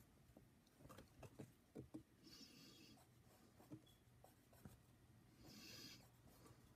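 Faint scratching of a fine-tipped pen drawing strokes on a sheet of paper, in two short spells, with a few soft clicks and knocks in between.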